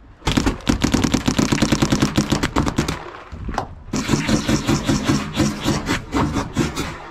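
Paintball markers firing rapid strings of shots, many per second, in two long bursts with a short break of about a second in the middle.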